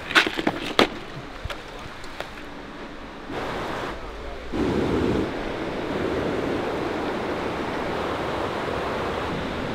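A few sharp knocks and clicks in the first second, then the steady rush of river water running through riffles and rapids, growing louder about three and a half seconds in and steady from about five seconds on.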